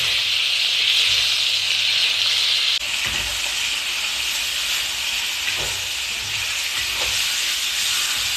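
Food sizzling in a hot pan, a steady hiss that drops a little in level about three seconds in, with a few soft knocks.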